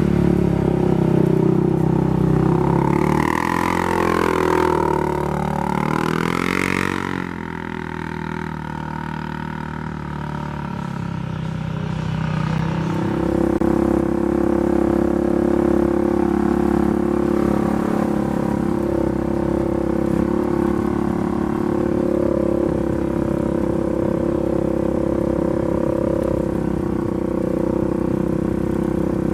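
Freshly rebuilt Polaris 570 single-cylinder engine running. It is revved up and down a few seconds in, then settles into a steady idle.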